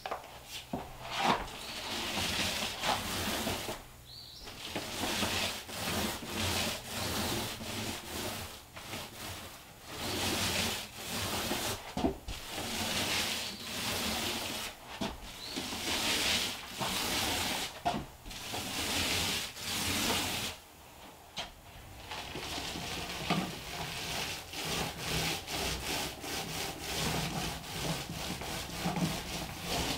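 Paint roller on an extension pole rolling paint onto drywall: repeated rubbing strokes, each a second or two, with short pauses between passes and quicker, shorter strokes in the last part.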